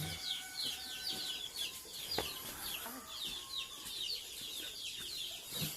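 Chickens calling: a continuous run of short, high chirps that fall in pitch, several a second, with a single click about two seconds in.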